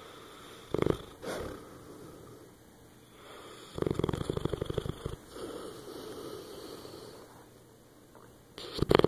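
Dog snoring in its sleep with rattling breaths: two short snorts about a second in, a long loud snore about four seconds in, softer breathing after it, and another loud snore starting near the end.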